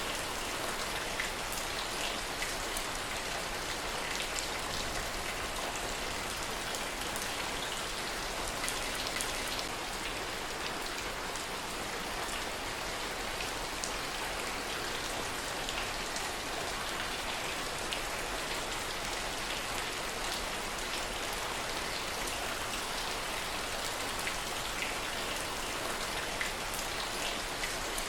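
Steady heavy rain, an even hiss with many separate drop ticks scattered through it and no thunder.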